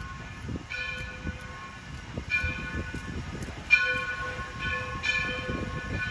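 Steam locomotive bell ringing in a steady cadence, about one stroke every second and a half, as the engine approaches, over a low rumble from the train.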